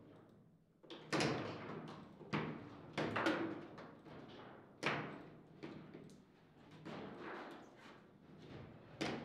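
Foosball table in play: irregular sharp knocks of the ball struck by the plastic players and bouncing off the table, with rods and figures clattering between. The first hard knock comes about a second in, after a quiet moment.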